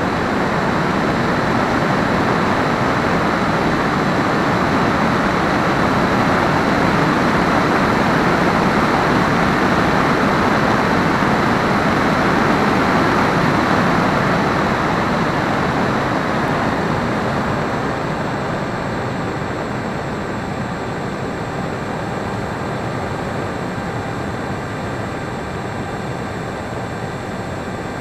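Air rushing over a Hobbyking Breeze model airplane in flight, heard on its onboard camera, with a faint steady high-pitched whine on top. The rush eases off a little past halfway through.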